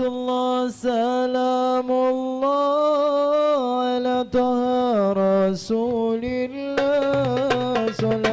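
A solo voice singing a Javanese kidung in long held notes that bend slowly between pitches. Hand-drum strokes come in near the end.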